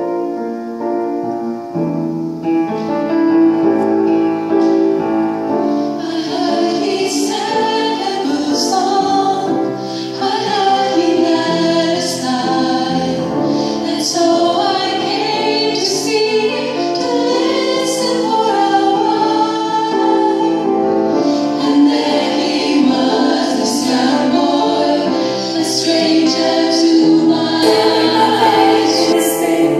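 Women's vocal ensemble singing a song together in several-part harmony into hand-held microphones, amplified through loudspeakers.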